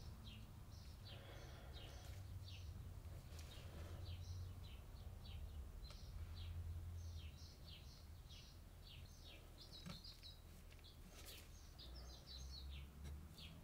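Faint birds chirping: quick, short, high chirps, several a second, over a low steady hum, with a couple of faint taps near the end.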